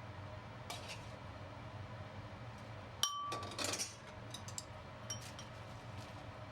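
Kitchenware clinking: a few light clicks, then about three seconds in a sharp clink that rings briefly, followed by a short rattle and more small clicks.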